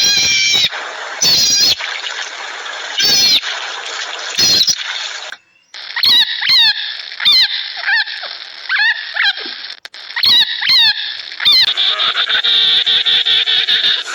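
High-pitched animal calls: loud calls about every one and a half seconds, then a run of quick falling chirps, then a denser stretch of calls, split by abrupt cuts.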